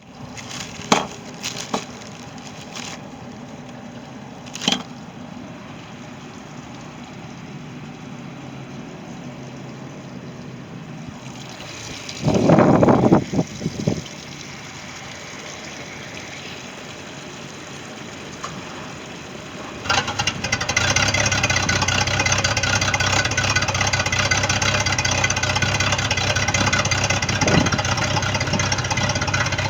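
4.3 L MerCruiser V6 boat engine, freshly fitted with a new thermostat, starting about two-thirds of the way through and then idling steadily. Before that there is a low steady hum with a few sharp knocks, and a loud burst of noise lasting under two seconds.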